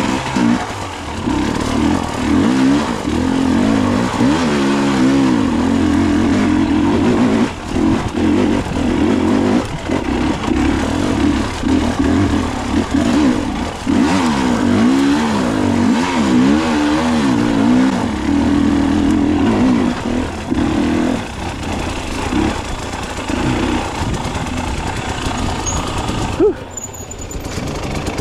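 Enduro dirt bike engine under load on a rocky uphill trail, its pitch rising and falling over and over with the throttle. Near the end the engine sound drops away sharply.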